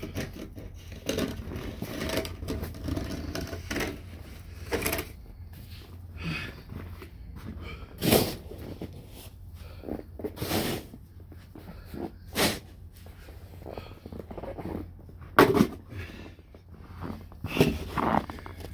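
Plastic snow shovel scraping into and scooping heavy snow, in separate sharp strokes at uneven intervals a few seconds apart.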